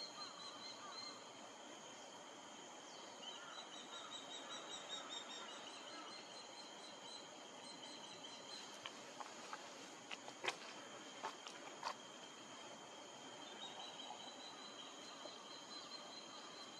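Wild birds calling in repeated runs of short high chirps over a steady high-pitched insect drone, with a few sharp clicks about ten to twelve seconds in.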